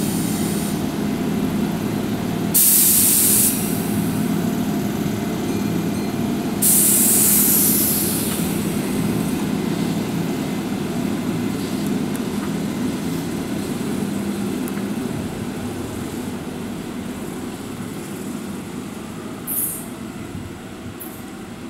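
Keihan 2400 series electric train standing at a station, its equipment humming steadily, with two loud bursts of compressed-air hiss about three and seven seconds in. The hum fades slowly over the second half.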